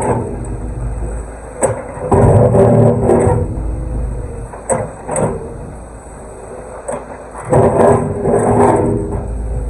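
Excavator diesel engine working under hydraulic load, swelling loudly twice as the machine pushes at the wall, with a few sharp knocks in between.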